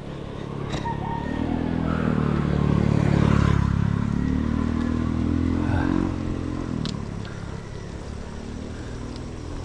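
A motor vehicle's engine approaching and passing close by. It swells to its loudest about three seconds in and fades away after about six seconds.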